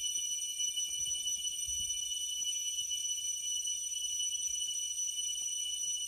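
Forest insects calling in a steady chorus: several high, unbroken ringing tones held together without a break.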